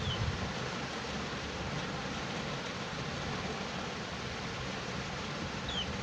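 Steady even background hiss, with two brief high chirps that fall in pitch from a cockatiel: one at the start and one near the end.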